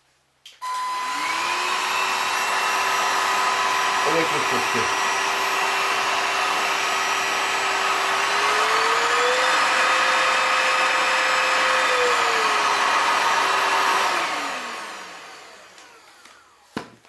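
Raven cordless stick vacuum switched on, its motor spinning up to a steady whine while the electric brush head's bristle roller turns. About eight seconds in the pitch steps up for about three seconds, then drops back. It is switched off near the end and winds down with a falling whine.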